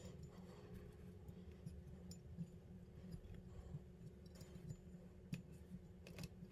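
Near silence: a few faint, sharp clicks of small pistol parts and a pick tool being handled, over a low steady hum.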